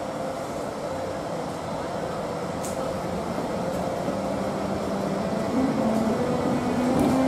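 ÖBB class 1016 Taurus electric locomotive pulling away slowly, its traction converters humming. About halfway through, a set of tones steps upward in pitch as it gathers speed, the musical scale this locomotive is known for.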